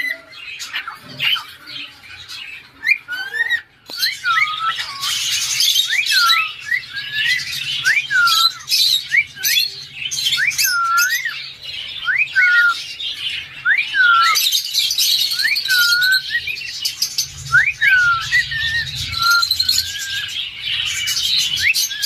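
Caged cockatiels calling: one bird repeats a short whistled call, a quick rise and a falling glide, about once a second, over the squawks and chatter of the other birds.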